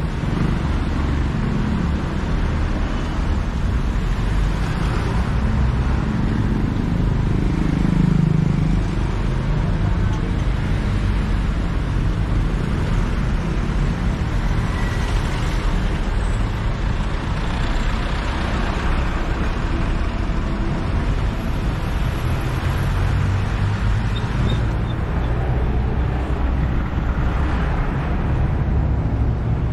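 City street traffic: cars and vans passing in a steady rumble of engines and tyres, with one vehicle passing louder about eight seconds in.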